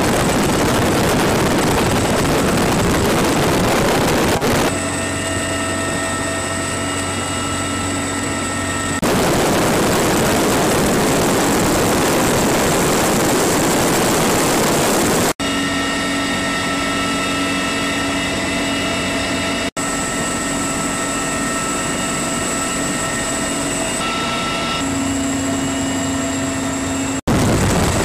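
CH-53E Super Stallion heavy-lift helicopter in flight; its three turboshaft engines, gearbox and rotors run continuously. The sound changes abruptly several times, switching between a dense, even rushing noise and a steady whine made of several distinct tones, including a high one.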